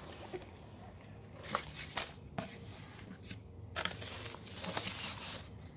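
A cardboard box being opened and the crumpled packing paper inside handled, rustling and crinkling in several short bursts with a few sharp clicks.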